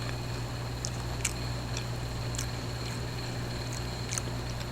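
Chewing food with mouth open, a few faint wet clicks scattered through, over a steady low hum.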